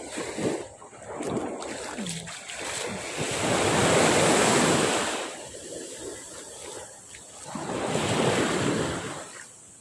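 Sea waves breaking and washing up a beach, in two surges that swell and fade: the louder one about halfway through, another near the end.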